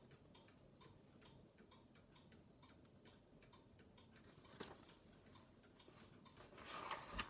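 Near silence with a steady run of faint, evenly spaced ticks, and a soft rustle near the end.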